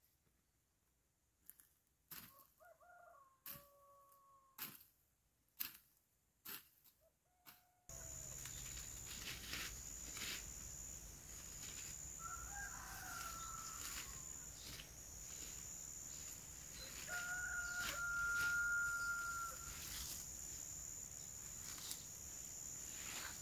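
A rooster crowing three times, the last crow a long steady note and the loudest. Short rustles and snaps of leafy vines being picked come in between.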